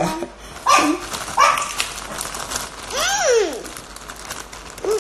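Packaging crinkling and rustling in a few short bursts as baby carrots are handled, with one brief high rising-and-falling voice sound about three seconds in.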